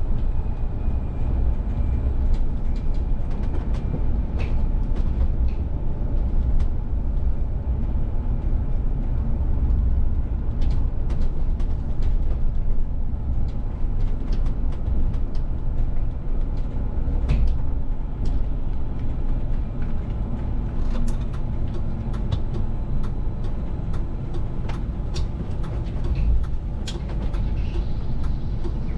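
Inside the cab of a VDL city bus on the move: a steady low rumble of engine and road noise, with frequent light clicks and rattles throughout.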